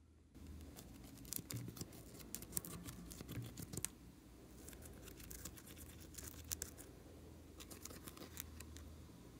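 A plastic spatula scraping and digging pressed eyeshadow out of a palette pan: irregular dry scratching with small sharp clicks, coming in spells of a second or two.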